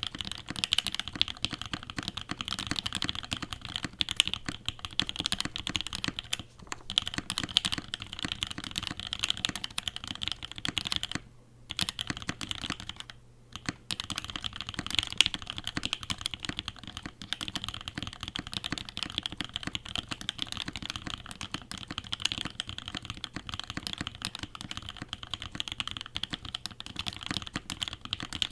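Mechanical keyboard with HaluHalo switches being typed on quickly and continuously: a dense run of keystroke clicks, broken by three short pauses.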